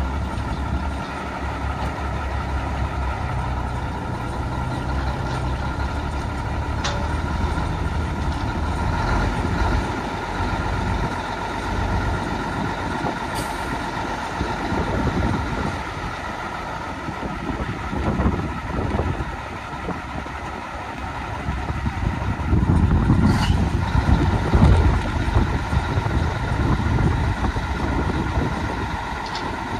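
Mack dump truck's diesel engine idling steadily, parked, with a louder, rougher stretch of low rumble about two-thirds of the way in and a few light clicks.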